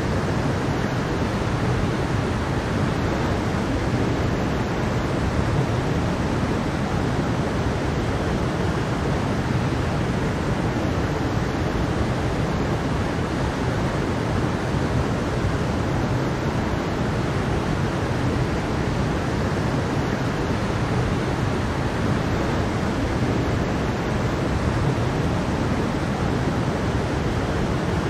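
Mountain stream with a small waterfall, water rushing steadily over rocks as an even, unbroken noise.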